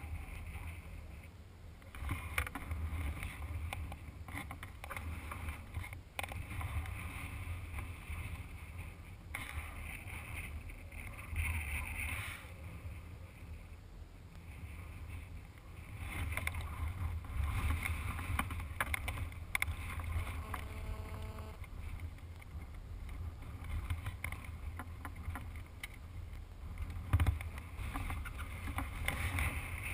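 Motorcycle engine idling with a low steady rumble while the bike stands still, with wind gusting on the microphone. There is a single knock near the end.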